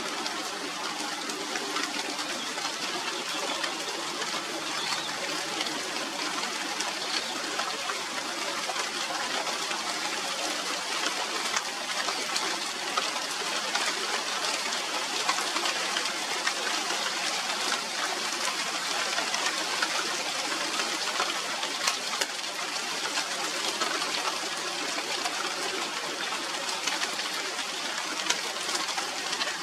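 Steady rain falling on the leaves of a China doll tree: an even hiss dotted with many fine drop ticks.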